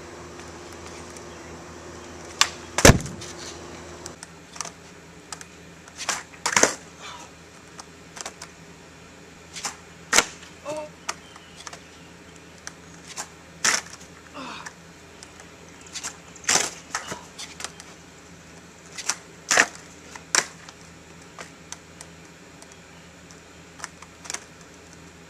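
Skateboard tail popping off a wooden picnic-table bench and the board clattering down during repeated tre flip attempts: a string of sharp clacks every few seconds, many in close pairs.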